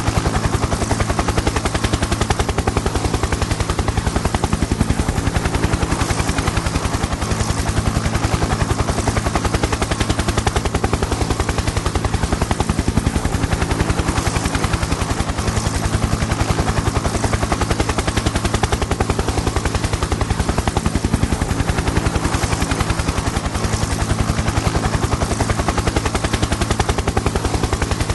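Helicopter in flight: a steady, rapid chop of the rotor blades over a steady engine drone, unchanging throughout.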